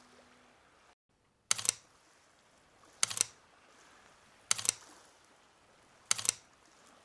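Camera shutter clicks, four of them evenly spaced about a second and a half apart, each a quick double click.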